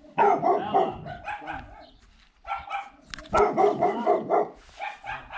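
A dog barking in several bursts at a draft horse it has not yet got used to.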